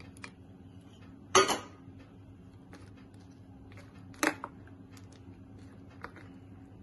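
Spatula knocking against the side of a steel bowl as fruit cream is stirred: a handful of sharp clinks, the loudest about a second and a half in and another about four seconds in.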